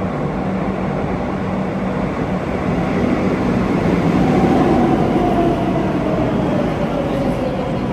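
Madrid Metro train running through an underground station: a steady rail rumble with a hum, and from about halfway through a whine that falls slowly in pitch as the train slows.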